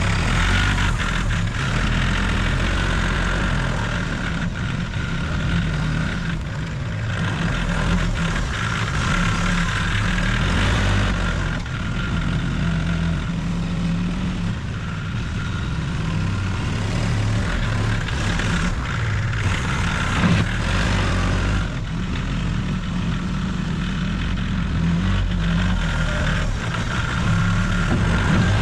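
Tractor engine running steadily, with a fainter steady whine above the engine note.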